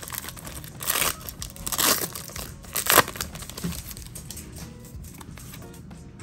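Foil wrapper of a Pokémon booster pack crinkling and tearing open, with three loud rustles about one, two and three seconds in, then quieter handling.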